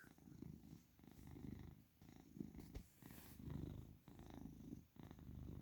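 Domestic cat purring faintly, in low swells that rise and fall about once a second with its breathing in and out.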